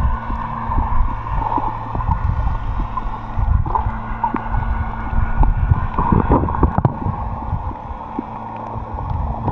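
Water sound picked up by a camera filming underwater: irregular low sloshing and rumbling of water moving against the camera, over a steady low hum.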